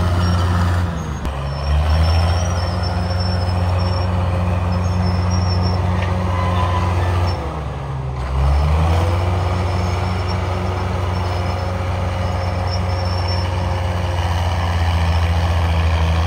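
Caterpillar D5 crawler dozer's diesel engine working hard while pushing brush. It bogs down under the load twice, about a second in and again around seven to eight seconds, each time dipping in pitch and loudness before picking back up.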